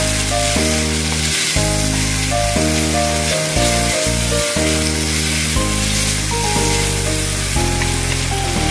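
Thinly sliced beef sizzling and frying in a hot wok as it is stirred with a wooden utensil, a steady hiss throughout. Background music with a stepping melody plays underneath.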